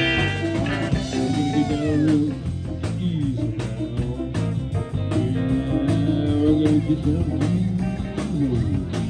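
Live rock and roll band playing an instrumental passage: electric guitar lead with bent notes over a steady drum kit beat and a repeating low bass line.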